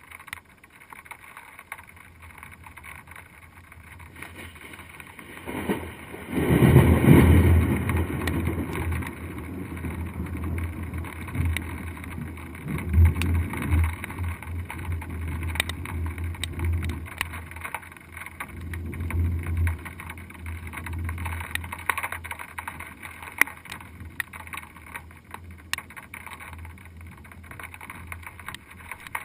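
Thunder from a nearby lightning strike, muffled by the GoPro Hero2's waterproof housing: a sudden loud burst about six seconds in, then a deep rumble that swells again several times and slowly dies away.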